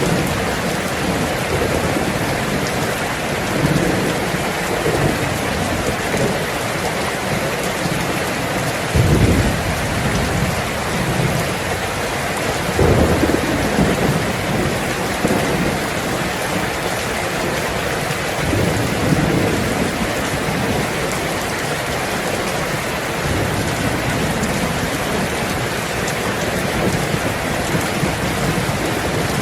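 Heavy rain falling steadily on a tin roof, with low rolls of thunder about nine seconds in, again about thirteen seconds in, and a longer rumble near the end.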